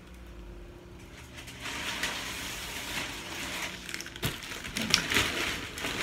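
Thick reusable plastic shopping bag rustling and crinkling as it is lifted and pulled open, starting about two seconds in. A single sharp knock comes about four seconds in.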